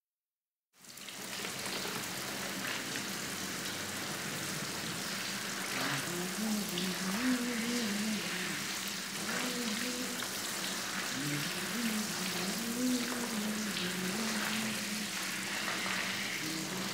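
Shower water spraying and splashing steadily, starting a little under a second in. From about six seconds in, a soft wavering tune rides over the water.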